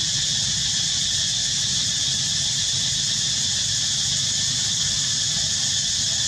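Steady, high-pitched insect chorus with no breaks, over a low, even rumble.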